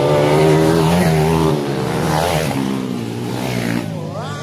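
Dirt bike engines revving hard as motocross bikes race along a dirt track, several engines overlapping with their pitch rising and falling with the throttle. Loudest in the first couple of seconds, easing a little, with an engine revving up near the end.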